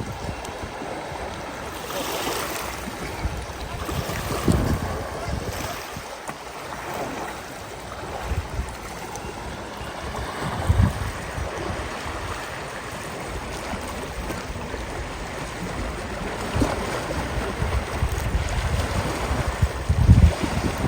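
River water rushing and splashing as elephants bathe and play in it, with wind gusts buffeting the microphone now and then.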